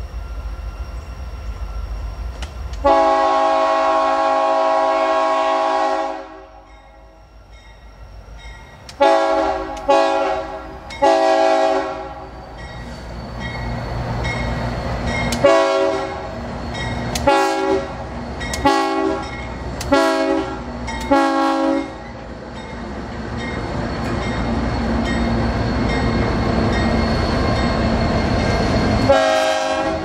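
Union Pacific diesel locomotives' multi-chime air horn sounding a horn salute: one long blast, then a set of three short blasts and a set of five short blasts in quick succession, with one more blast near the end. Under it the locomotives' diesel engines rumble, growing loud as they pass.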